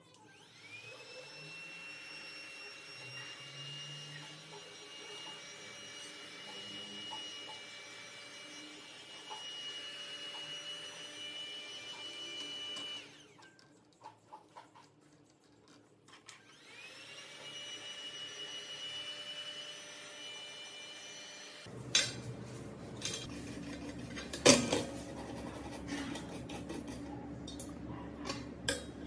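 A small high-speed electric tool motor spins up and runs at a steady whine, stops about 13 seconds in, then spins up again a few seconds later. Near the end a lower, rougher running sound with sharp clicks takes over.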